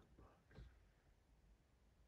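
Near silence, with a faint whisper in the first second and then only still room tone.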